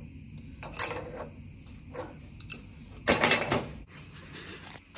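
Steel-on-steel clinks as a BXA quick-change tool post and its tooling are handled and tightened on a lathe's compound: a few sharp single clinks, then a louder rattle of metal about three seconds in.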